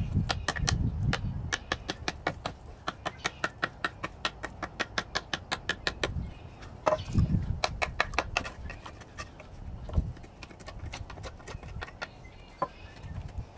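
Mora Companion Heavy Duty MG knife blade cutting into a wooden stick: a rapid, regular series of sharp clicks, about five a second, thinning out near the end, with a few dull handling thumps.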